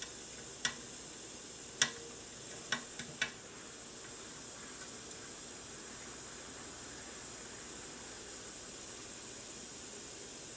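Steady hiss of a butane gas soldering iron burning while ESC leads are soldered to a circuit board, with a few sharp clicks between about one and three seconds in.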